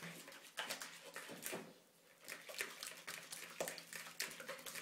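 Wire whisk stirring yogurt and Schmand in a plastic bowl: irregular wet clicks and scrapes of the wires against the bowl, with a short pause about two seconds in.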